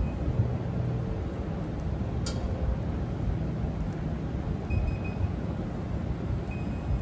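Digital multimeter's continuity beeper sounding in two short, broken beeps as the probe touches the aircraft exhaust, a sign of poor, intermittent continuity. A single sharp click comes about two seconds in, over a steady low rumble of background noise.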